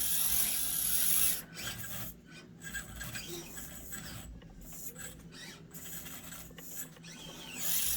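SCX24 micro RC crawler's small electric motor and geared drivetrain whirring as it crawls, its tires scraping over the course surface. Loudest in the first second, then quieter and stop-and-go, with several short pauses as the throttle is let off.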